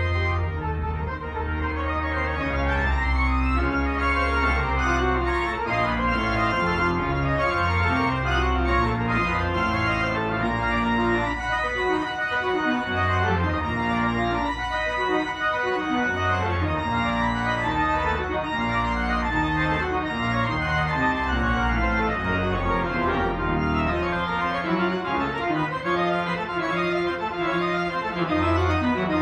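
Spreckels Organ, a large outdoor pipe organ, playing sustained chords over deep pedal bass notes. The pedal bass drops out between about 11 and 16 seconds in, then returns.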